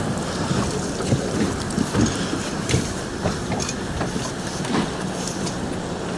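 Small fishing boat on choppy sea: steady wind and water noise against the hull, with a low steady hum and scattered knocks and clicks from handling aboard.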